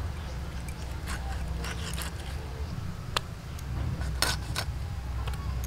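Magur catfish being cut on a boti blade: a few sharp clicks and scrapes scattered over a steady low rumble.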